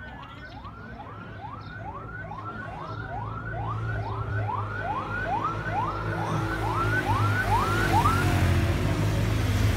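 Motorcycle escort's siren giving a quick rising yelp, repeated about twice a second, which stops about eight seconds in. Under it the motorcycle's engine grows louder as it approaches.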